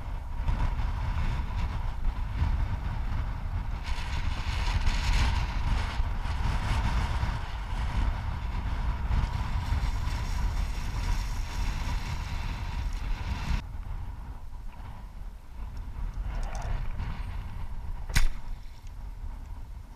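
Wind buffeting the microphone, while an arrowed carp on a bowfishing line thrashes and splashes at the surface for about ten seconds, the splashing cutting off abruptly. A single sharp click near the end.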